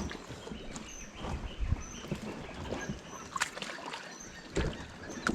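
Water splashing and sloshing, with irregular knocks against a kayak, as a paddler climbs out into knee-deep water beside a kayak that has taken on water.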